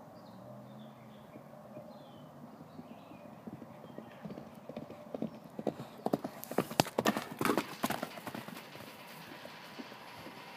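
Hoofbeats of a horse galloping loose on dry dirt. They grow louder from about three seconds in, are loudest a few seconds later, then fade away.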